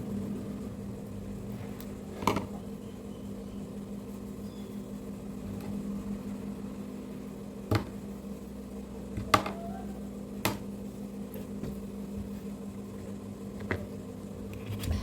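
A metal spoon working set jaggery toffee mixture in a container: about half a dozen sharp, separate clinks and taps at irregular intervals, over a steady low hum.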